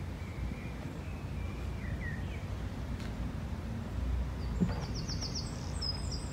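Outdoor ambience of a low steady rumble with birds chirping: a few faint chirps in the first couple of seconds, then a quick run of high chirps over the last two seconds. A single sharp knock sounds about four and a half seconds in.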